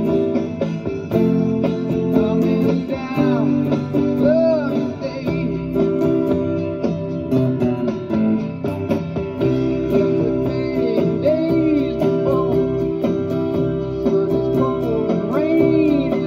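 Electric guitar playing a lead line with many bent notes, over steady chords and bass.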